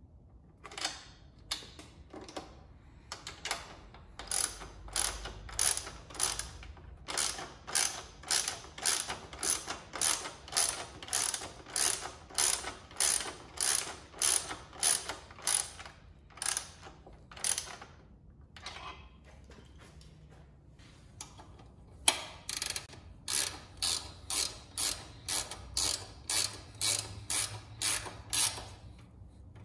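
A ratchet wrench clicking in quick back-and-forth strokes, about two a second, as 12 mm bolts are run in and tightened. About two-thirds of the way through the strokes stop for a few seconds, a single sharp click sounds, and the ratcheting starts again.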